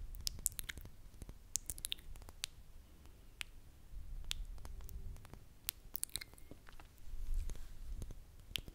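Wet mouth sounds made right at a microphone: irregular lip smacks and tongue clicks, with two spells of low rumble close on the mic, one near the middle and one near the end.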